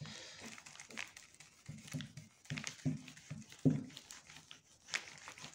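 Cloth wiping marker writing off a plastic-covered whiteboard: rubbing and crinkling of the plastic sheet in irregular strokes, with a few short low sounds near the middle.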